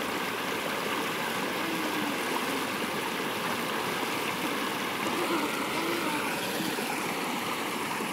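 Shallow river water rushing steadily over rocks in a small cascade.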